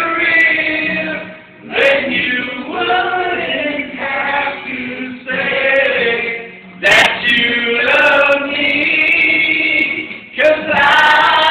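Two men and a woman singing together in unison, holding long notes in phrases with short breaks between them.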